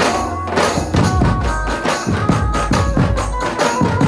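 Dhumal band playing a qawwali tune: large dhumal drums beaten in a fast, driving rhythm, with a held melodic line over the beat.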